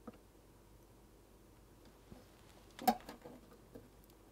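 Faint small clicks and taps of hands working a soldering iron and a capacitor on a circuit board, with a short cluster of sharper taps about three seconds in.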